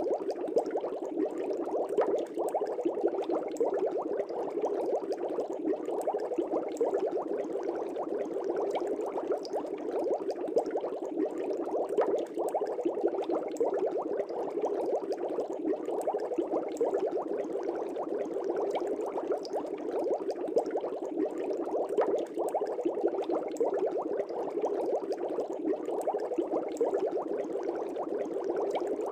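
Air bubbles streaming up through a fish tank's water, a steady dense bubbling with many small pops and ticks.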